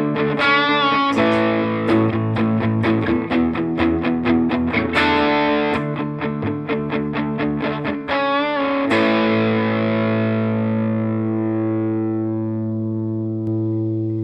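Gordon Smith GS1000 electric guitar played through an overdriven Fender Bassbreaker 15 valve amp: a bluesy lead of quick picked runs with two bent, wavering notes. From about nine seconds in, a long held ending rings out and slowly fades.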